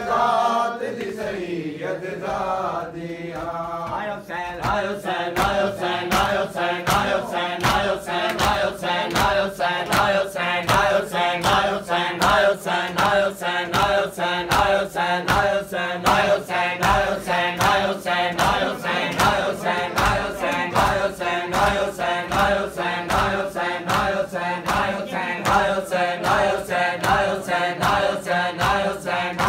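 A group of men chanting a mourning lament (noha) in unison, with rhythmic chest-beating (matam) strikes joining in about four seconds in and keeping time at two to three strikes a second.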